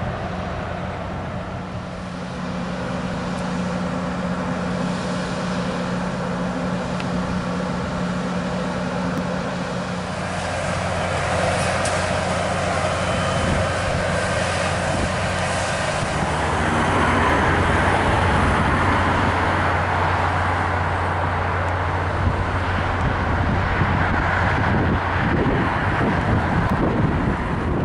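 Diesel engine of a stabled Loram rail grinder idling, a steady low hum. The hum shifts about ten seconds in, and a louder rushing noise joins it about halfway through.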